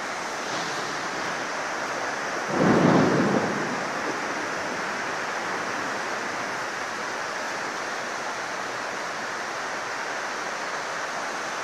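Storm noise: a steady hiss of heavy rain and wind, with a louder low rumble about two and a half seconds in that lasts about a second.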